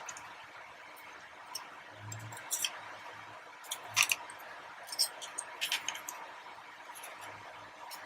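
Light clicks and taps of snap-together plastic model kits and their parts being handled and set down, with a cluster of sharper clicks around the middle.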